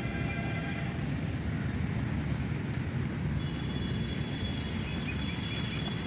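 Outdoor street ambience: a steady low rumble, with a held tone near the start and a thin high whine from about halfway through.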